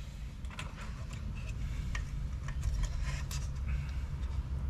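Scattered light clicks and scrapes of small metal engine parts and hand tools being handled during an engine rebuild, over a steady low hum.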